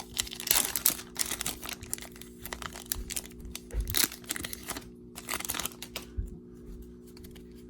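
A foil trading-card pack being torn open and its wrapper crinkled, a run of rustles for the first five seconds or so, then quieter handling.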